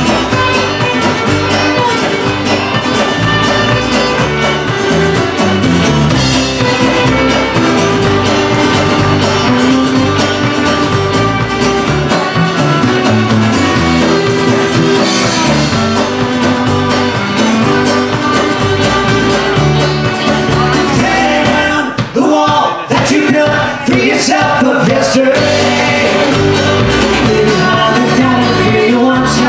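Live Celtic rock band playing a song on fiddle, five-string banjo, acoustic guitar, upright bass and drum kit, with singing. The band drops out briefly about two-thirds of the way through, then comes back in full.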